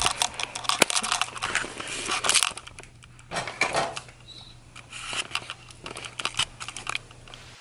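Crinkling and crackling of plastic being handled, with scattered clicks and light knocks, busiest in the first couple of seconds.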